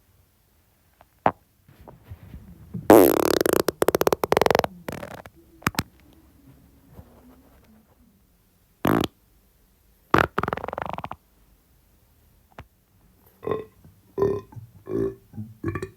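A series of human farts and burps: a long rippling one lasting nearly two seconds about three seconds in, a short one around the middle, a second rippling one shortly after, then a quick run of short pitched ones near the end.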